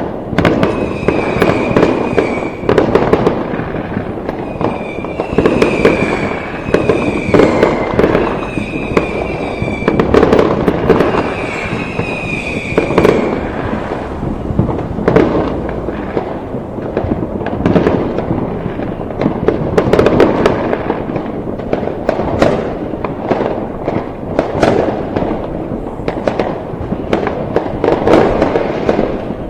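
A dense, continuous fireworks barrage: overlapping bangs and crackling with no pause. Through the first half, a run of short, high whistling tones, each dropping slightly in pitch, rises above the bangs.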